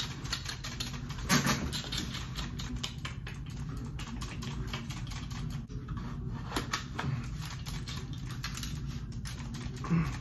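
Dense, irregular clicking like fast typing over a steady low hum. A few louder plastic knocks and rustles come as the toy gel blaster is handled and shifted from shoulder to shoulder.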